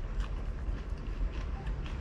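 Close-miked chewing of fried pork belly: a string of soft, irregular mouth clicks and smacks, over a steady low hum.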